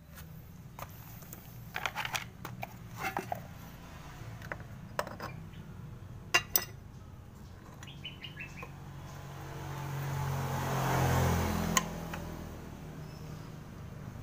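Metal clinks and light knocks from hand work on a scooter's CVT (belt drive): loose parts and the front pulley nut handled, and the rubber drive belt worked off the front pulley, with a few sharp clicks. A rush of noise over a low hum swells and fades about ten to twelve seconds in.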